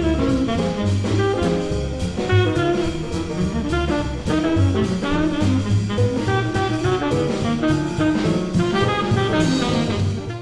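Small jazz group recording with tenor saxophone, piano, drum kit and a walking double bass in swing time. A pizzicato upright bass is played along with the record.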